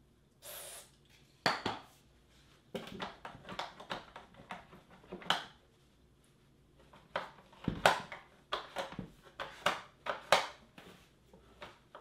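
A brief hiss of aerosol electronic contact cleaner sprayed at a robot-vacuum charging dock's contact pad about half a second in, then a cloth scrubbing and rubbing at the plastic dock's charging pads with irregular scuffs and knocks.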